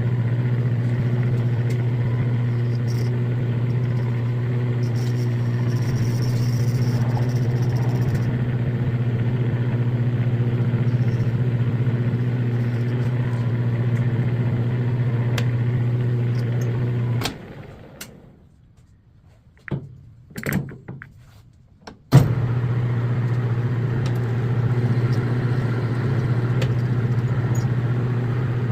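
Metal lathe motor running with a steady hum while threading a rifle barrel, played at double speed. About seventeen seconds in the machine stops, a few light knocks follow in the quiet, and some five seconds later it starts up again with a sharp jolt.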